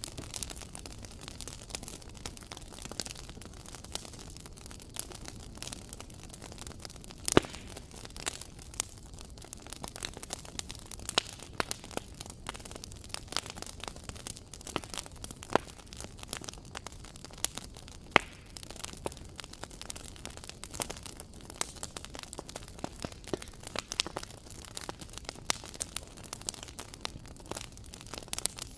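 Wood fire in a fireplace crackling, with irregular sharp pops over a soft steady low rush of burning. Two pops, about seven and eighteen seconds in, stand out as the loudest.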